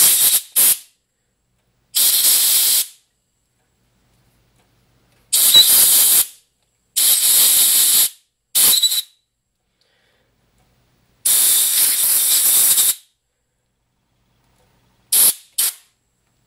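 A compressed-air blow gun blasting dust out of the small parts of a disassembled antique electric motor, in a series of loud hissing blasts. Some blasts are short and some last a second or two, and a faint whistle rides on two of them. Two quick puffs come near the end.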